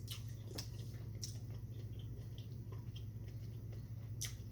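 Close-up chewing and wet mouth sounds, with a few sharp clicks, over a steady low hum.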